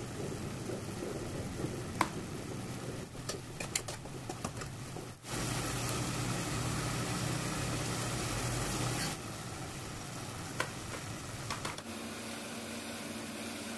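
Ground beef stew simmering and sizzling in a pot on a gas stove, a steady hiss with a few light clicks and taps as seasonings and raisins are added. A low hum comes in for a few seconds in the middle, and the background changes abruptly at edit cuts.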